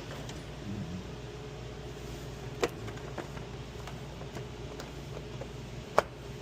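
Two sharp clicks, the first a little under three seconds in and the louder one about six seconds in, with a few faint ticks between, over a low steady hum.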